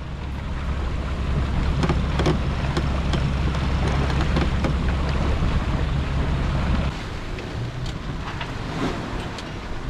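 Wind buffeting the microphone over water rushing along the hull of a sailing yacht under way, with a strong low rumble that drops away about seven seconds in. A few faint clicks sound over it.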